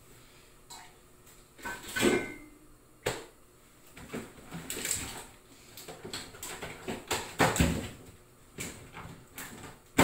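Irregular kitchen handling noises: knocks, clatter and clinks of things being picked up and set down, with a short ringing clink about two seconds in.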